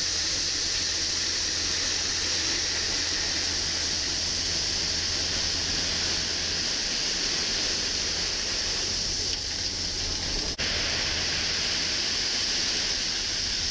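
Crushed-stone railway ballast pouring off the raised bed of a tipper truck in a steady rush, with the truck's engine running underneath.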